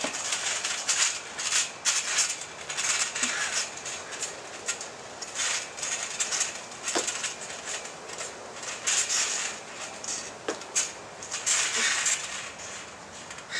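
Backyard trampoline under wrestlers' weight: the springs and mat creaking and rattling in irregular bursts as bodies bounce and fall, with a few sharp clicks.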